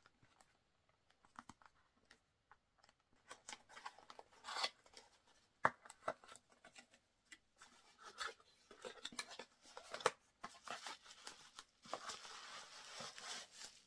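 Cardboard box being opened and handled: scattered light clicks and scrapes of the card flap, then plastic bubble wrap rustling and crinkling, denser over the last few seconds as the wrapped glass is drawn out.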